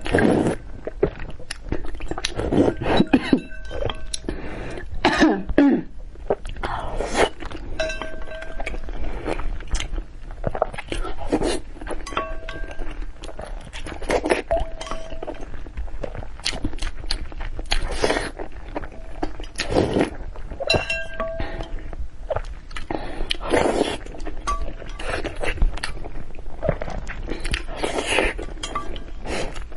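Close-miked eating sounds: chewing, crunching and slurping in irregular bursts, with occasional short clinks of utensils.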